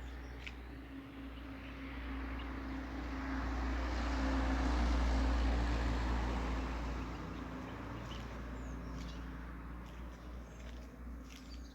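A motor vehicle driving past, its engine and tyre noise swelling to a peak about halfway through and then fading away. Small birds chirp faintly, mostly near the end.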